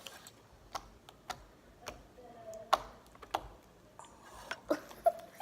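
Sharp clicks and small pops at irregular intervals, about ten in five seconds, the loudest about three seconds in and again near the end.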